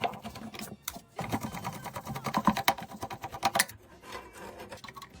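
Quick irregular clicks and rattles of small plastic and metal parts from work on a car CD head unit, busiest in the middle and easing off near the end.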